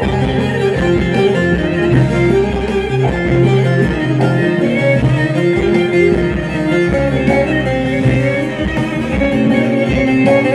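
Turkish folk music led by a plucked bağlama (long-necked saz), a melody of short picked notes over sustained low notes.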